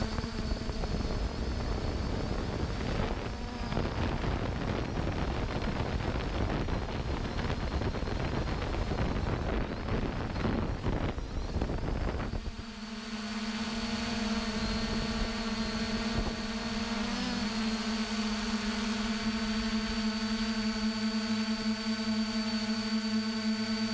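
A loud, even rushing rumble for about twelve seconds, then it stops suddenly and a steady drone of several held tones carries on to the end.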